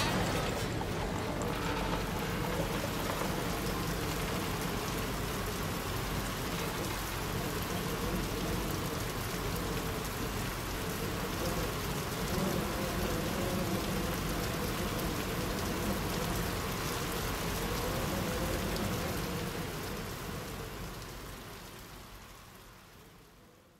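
Ambient electronic music ending on a steady dense hiss of noise over a low wavering drone, fading out to silence over the last few seconds.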